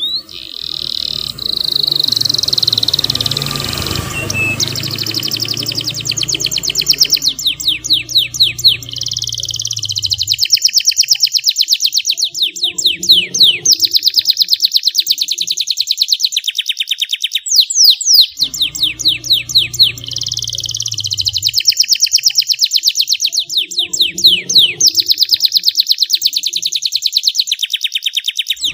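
Domestic canary singing a long, loud song of rapid high trills and rolls broken by quick sweeping notes. A low hum comes and goes underneath.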